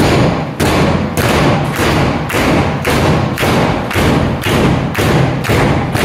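Heavy thumps repeating in a steady rhythm, about two a second, over a loud continuous din. The thumps start suddenly.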